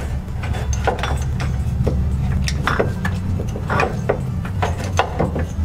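Irregular metal clunks and knocks as an unbolted A/C compressor is wiggled by hand out of its mounting space, over a steady low hum.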